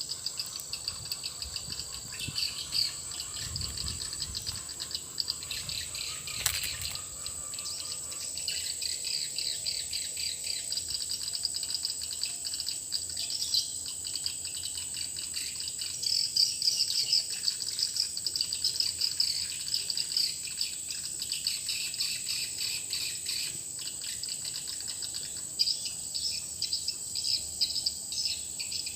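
Swiftlet lure call (suara panggil) played through a swiftlet house's tweeter speakers: fast, dense, high-pitched chirping, with a steady thin high tone beneath it.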